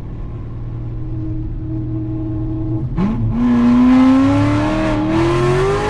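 Cammed 6.2-litre V8 of a manual C7 Corvette running at a steady speed, then about three seconds in the throttle opens and the engine pulls hard, its pitch climbing steadily under load.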